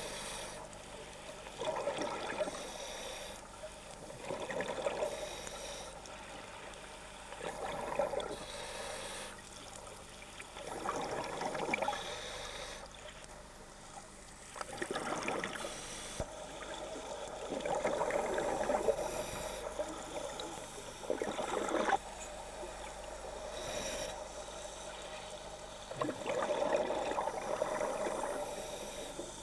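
Scuba diver breathing underwater through a demand regulator: a rushing inhale and a bubbling exhale, repeating every few seconds.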